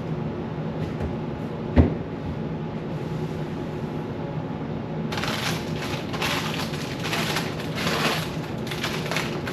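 Household cleaning noises over a steady low hum: a single sharp knock about two seconds in, then from about halfway a run of irregular rubbing, scrubbing strokes.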